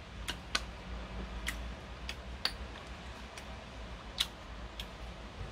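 Light eating sounds: about seven or eight sharp, irregularly spaced clicks as a metal teaspoon digs into a halved golden kiwi.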